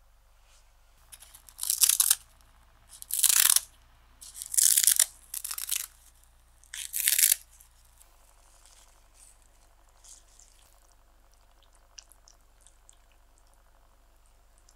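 Crisp roasted seaweed (nori) crunching and tearing in five short bursts, as it is broken into strips for a garnish, followed by a few faint light clicks.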